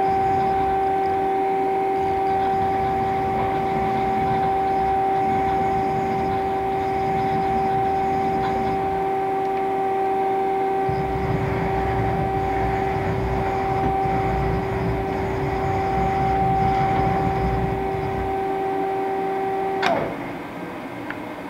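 A 2008 Hwacheon Hi-Tech 200A CNC turning center runs under power with a steady electric hum, and a low rumble joins for several seconds midway. About 20 seconds in there is a sharp click and the hum stops.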